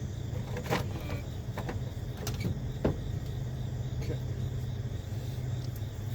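A few light clicks and knocks from hand tools working on a car's battery cable terminals, over a steady low rumble.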